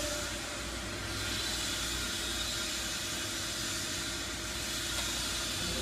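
Winch's electric motor and 30:1 worm gear reducer running steadily while hoisting a load, an even hum with no knocking. The abnormal noise, about 30 knocks per output-shaft turn, comes only when lowering; the owner's first guess is low or dirty gear oil.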